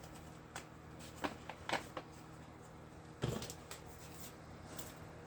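Scattered light taps and clicks of hands handling craft materials, with one louder knock about three seconds in, over a faint steady hum.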